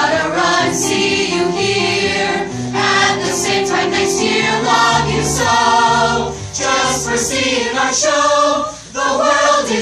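A group of voices singing a Broadway show tune together in chorus, over instrumental accompaniment with sustained bass notes.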